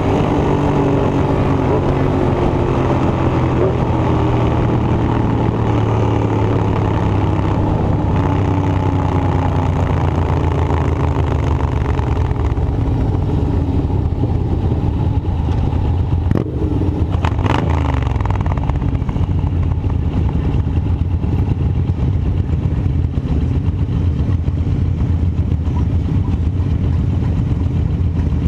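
An engine running steadily, its pitch easing down a little in the first few seconds, with a couple of sharp clicks about two-thirds of the way through.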